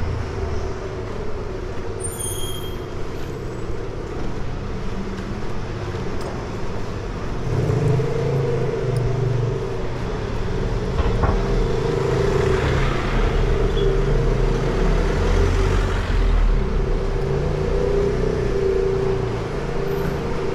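City street traffic: a motor vehicle's engine running close by, with a steady hum over low rumble that grows a little louder partway through.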